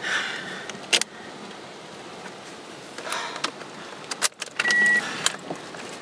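Tropical-storm wind and rain buffeting a parked car, heard from inside the cabin: a steady rushing hiss with rain and debris tapping sharply on the glass and body, and a couple of stronger gusts. A short high beep sounds about five seconds in.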